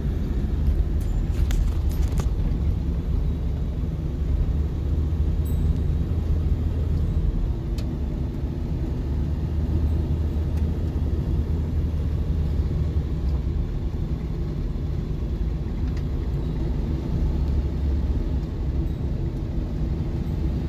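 Cabin noise of a vehicle driving slowly along a dirt road: a steady low rumble of engine and tyres, with a few brief clicks or rattles about two seconds in.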